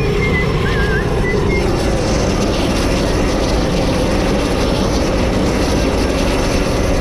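Propeller engine of a jump plane running steadily on the ground.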